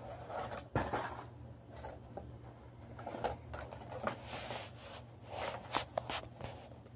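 Hands handling small plastic toy figures and their plastic packaging: scattered clicks and short rustles, with the sharpest click about a second in.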